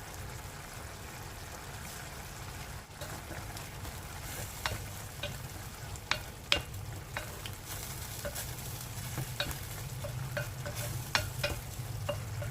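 Pork asado filling in soy, oyster and hoisin sauce sizzling in a pan as it is stirred, over a low steady hum. From about four seconds in, the utensil clicks and taps against the pan many times.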